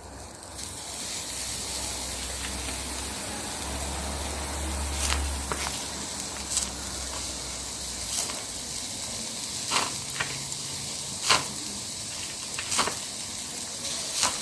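Minced-meat and fat kebab skewers sizzling over wood embers: a steady hiss that starts about half a second in, with sharp crackles and pops every second or two in the second half.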